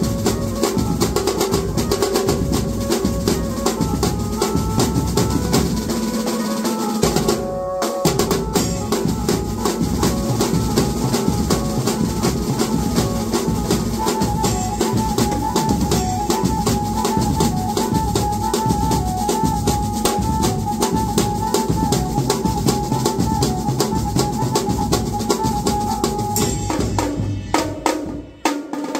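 A banjo party band playing a fast, driving beat on drum kits, dhol and snare drum, with an amplified melody line on top. The low drums drop out for a moment about seven seconds in, and the playing breaks off shortly before the end.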